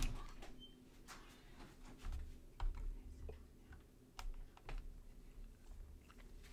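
Faint, irregular clicks of computer keyboard keys being pressed, one at a time, with a few soft low bumps in between.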